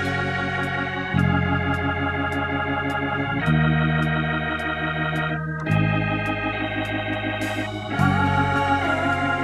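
Background music: sustained organ chords that change about every two seconds over a light, regular ticking beat, with a wavering melody line coming in near the end.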